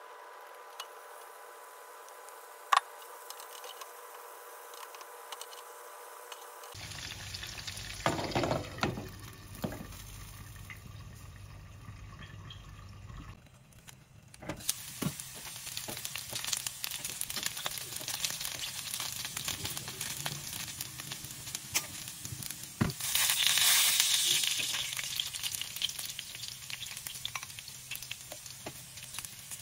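Chicken pieces sizzling as they fry in hot oil in a nonstick pan, with metal tongs clicking and scraping as the pieces are turned. A steady hum sits under the first several seconds, and the sizzling swells loudest about two-thirds of the way through.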